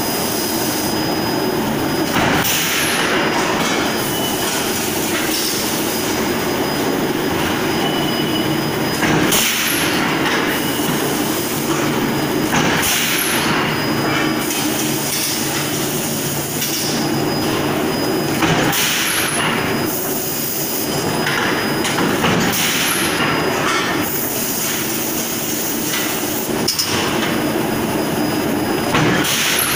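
Continuous din of forging presses and an industrial fan running in a hot forging shop, with sharp blows or bursts every few seconds as the presses work hot metal.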